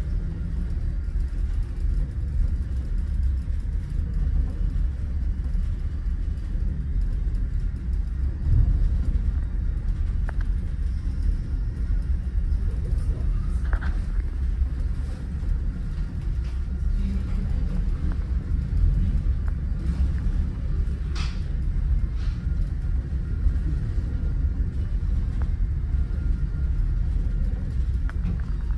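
Steady low rumble on board a car ferry under way, with a few faint brief knocks in the middle.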